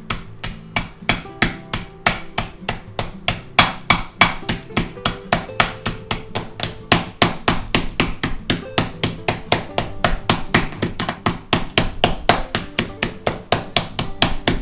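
Steel flat bar nail puller used as a meat mallet, pounding a pork chop inside a plastic bag with rapid, even strikes, about four to five a second.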